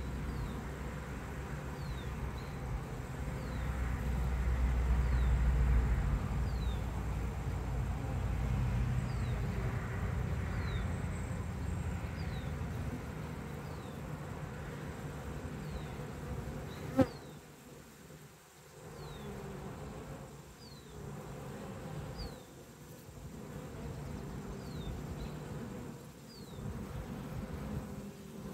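Honeybees buzzing around an open nuc hive, a steady drone that is fuller in the first half and then quieter and coming in swells. A single sharp click about two-thirds of the way through is the loudest sound. Faint short high chirps repeat about once a second.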